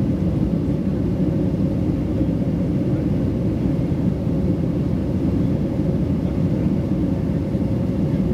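Steady low rumble of a Boeing 757's Pratt & Whitney PW2037 engines and rushing air, heard inside the cabin as the airliner climbs out after takeoff.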